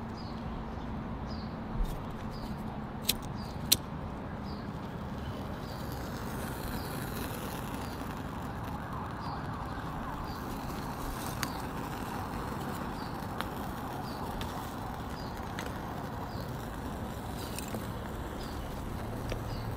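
Lumps of charcoal clacking together as they are stacked by hand in a metal grill box: three sharp clacks in the first four seconds and a couple of lighter ones later. Under it runs a steady hum with a faint high chirp repeating about once a second.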